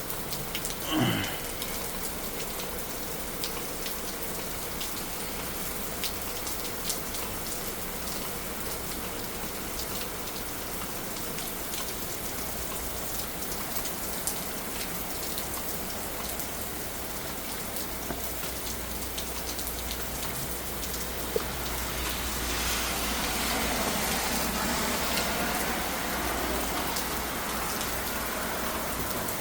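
Heavy rain falling, a steady hiss of many drops pattering on surfaces. A brief falling-pitch sound comes about a second in, and the rain swells louder for a few seconds a little past two-thirds of the way through.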